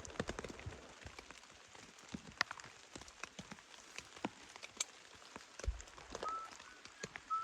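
Raindrops striking a tent shelter's fabric: irregular, sharp ticks over a faint hiss. About six seconds in, a few short, high whistle-like notes come in.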